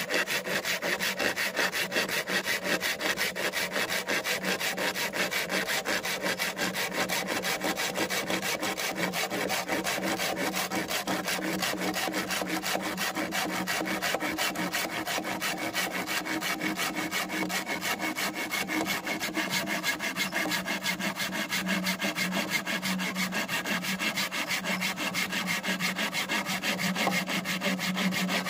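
Saw cutting through bamboo, a steady run of rapid back-and-forth strokes that goes on without a break.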